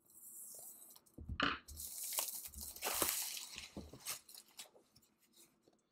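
Cardboard board-game components being handled and lifted out of the box: rustling and sliding with light clicks and knocks, starting about a second in and dying away after about four and a half seconds.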